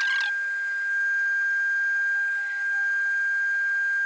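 Benchtop laboratory centrifuge spinning at 12,000 RPM, giving off one steady, high-pitched whine.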